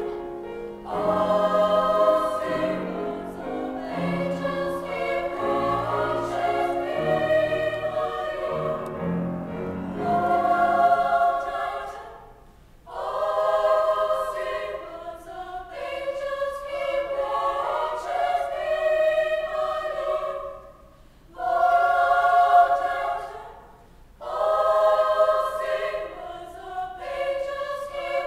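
Women's choir singing in parts with piano accompaniment. The piano's low notes stop about eleven seconds in, and the voices carry on in phrases broken by short pauses.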